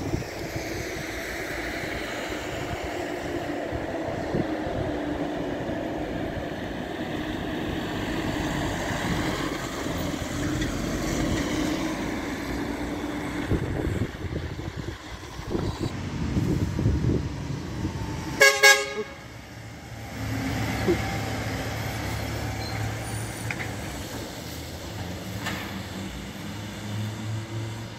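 Emergency vehicles driving past, their engines and tyres on the wet road, followed by one short, loud air-horn blast about two-thirds of the way in. A heavy diesel engine then runs steadily at a low pitch.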